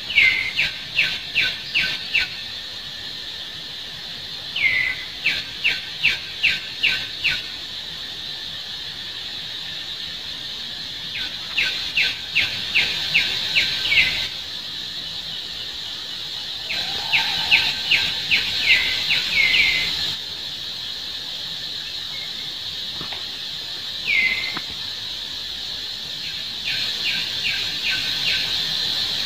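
Bursts of six to eight short, high-pitched calls, each burst opening with a falling note, coming back every few seconds over a steady high insect drone.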